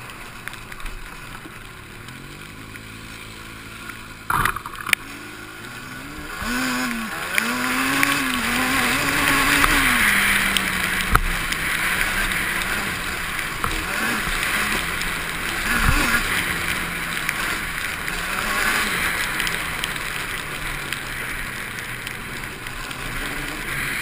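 Quad bike (ATV) engine running and revving as it rides a muddy trail, its pitch rising and falling with the throttle, over a rushing hiss that grows louder about six seconds in. A few single knocks stand out along the way.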